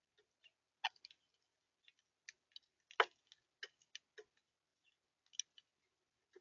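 Birds pecking and cracking seed at a feeder: a dozen or so faint, irregular sharp taps and clicks, the loudest about three seconds in.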